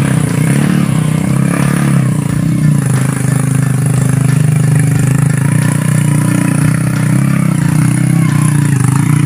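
Motorcycle engine running at a steady pitch, with slight rises and dips in speed.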